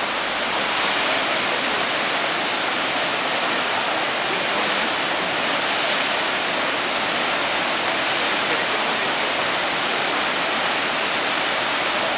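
Steady rushing of whitewater pouring through a standing river wave, the Eisbach wave, an even, unbroken water noise.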